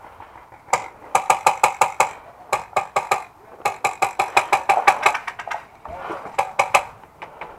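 Airsoft guns firing in rapid bursts of sharp cracks, about eight shots a second, in several strings with short pauses between.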